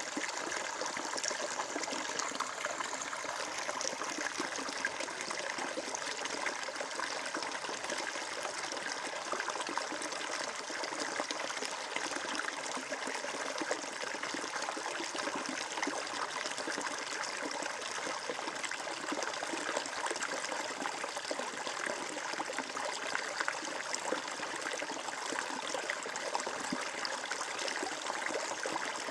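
Water flowing and trickling over stones in a stream, a steady babble of small splashes.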